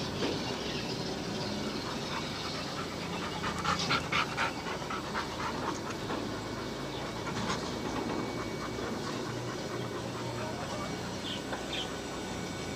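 Black Labrador panting steadily, with a cluster of short clicks and scuffs about four seconds in and a few more a little past the middle.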